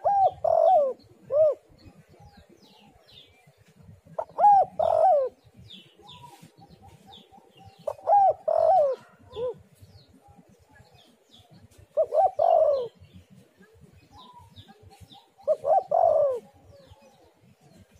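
Spotted dove cooing: a phrase of three low coos, repeated five times about every four seconds. Faint short chirps of small birds sound between the phrases.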